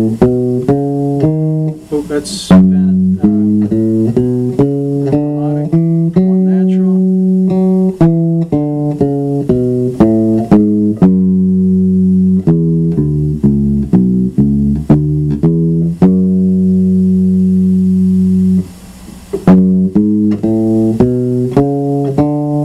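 Bass guitar playing single notes in G minor, stepping up and down through the scale, with a few longer held notes and a short break near the end.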